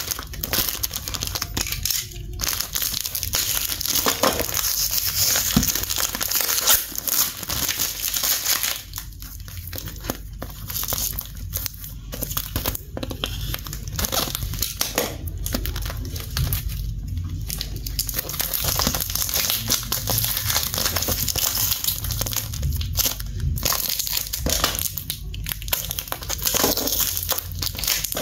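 Cardboard packaging being torn and cut open by hand and with a snap-off utility knife: continuous crinkling, scraping and tearing of paper and cardboard, broken by several short pauses.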